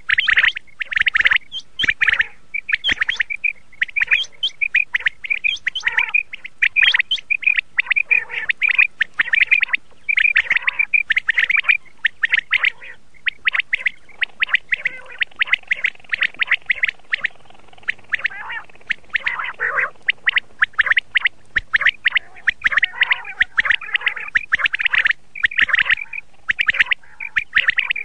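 Quail calling again and again: short, high notes repeated several times a second with only brief pauses between runs.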